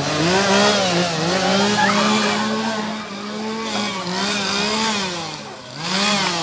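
Gas chainsaw revving up and down over and over, with a fresh rev near the end.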